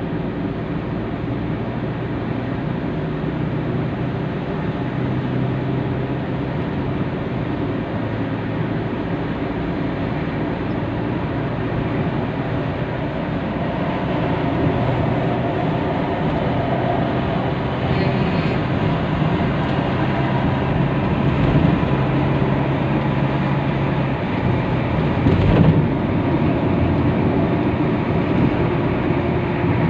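Car cabin noise while driving on a freeway: a steady engine hum under tyre and road noise, growing a little louder as the car picks up speed. A brief thump about twenty-five seconds in.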